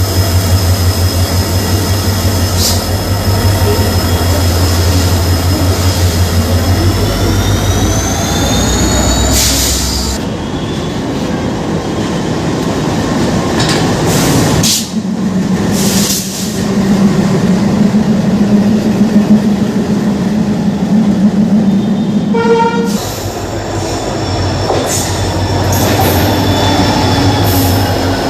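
Diesel locomotive engines, Alco and EMD, heard in a series of short clips. A deep, pulsing engine beat has a rising whine about seven seconds in. After about fifteen seconds comes a steady low hum, and a pulsing low engine beat returns near the end.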